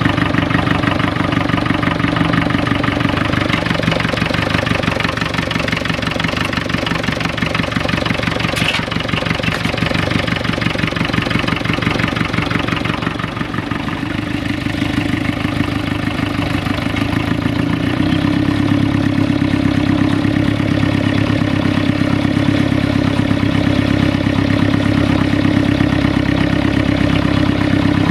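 Massey Ferguson 35 tractor engine running steadily. Its low note changes about eighteen seconds in.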